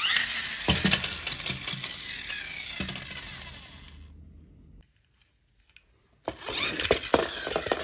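Friction-powered toy monster trucks running on a tile floor: a gear whir with clattering wheels that falls in pitch and fades over about four seconds. After a short pause comes a burst of clicking and clattering as a plastic toy truck is handled over a plastic basket.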